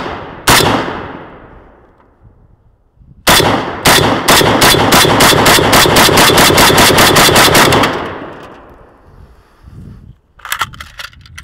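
Riley Defense Krink, an AKS-74U-style rifle in 7.62x39, firing: two shots at the start, then after a pause a long, even string of rapid fire at about six shots a second for some four seconds, each shot trailing off in echo. The string stops on a magazine failure, and near the end there are light metallic clicks and rattles as the rifle is handled.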